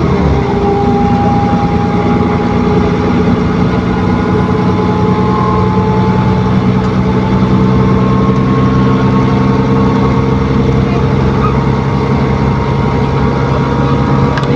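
ADL Enviro400 double-decker bus on a Trident chassis, heard from on board: a steady engine drone with the cooling-fan 'hoover' whine, held in several level tones. Its pitch drops briefly at the start, then holds steady with no kickdown or hard revving.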